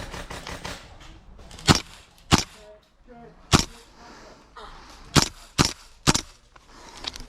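Gas blowback airsoft rifle firing six single shots, each a sharp crack; the first three are a second or so apart, and the last three come in quick succession.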